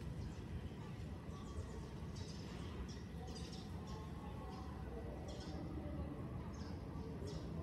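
Baby squirrels giving short, high-pitched squeaks, repeated irregularly several times over a steady low background hum.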